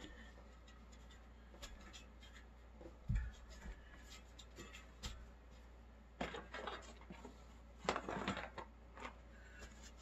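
Ritchey Z-Max bicycle tire being worked onto a wheel rim by hand: faint rubbing and scraping of rubber against the rim, with a dull thump about three seconds in and louder scuffing bursts a little after six and near eight seconds.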